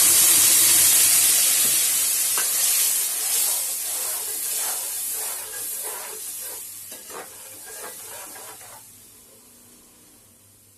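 Whisked curd sizzling as it hits hot oil in a metal kadai, the loud hiss dying away over several seconds. A metal spoon scrapes and taps against the pan as the curd is stirred, stopping about nine seconds in.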